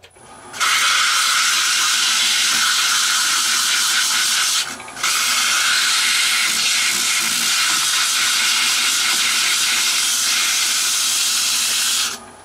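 Folded sandpaper held by fingers against the inside of a hollowed wooden box body spinning on a lathe: a loud, steady sanding hiss that starts about half a second in, breaks off briefly about five seconds in, and stops near the end.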